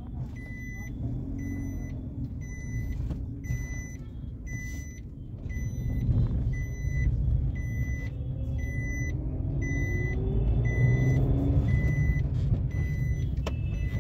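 Car driving, heard from inside the cabin: a steady low engine and road rumble, with the engine note rising a few times as the car picks up speed in the second half. A short high beep repeats about once a second.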